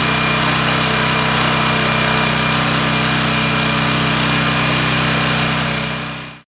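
Harbor Freight 2000-watt portable generator's small gasoline engine running steadily after a new ignition coil cured its no-start. The sound cuts off abruptly near the end.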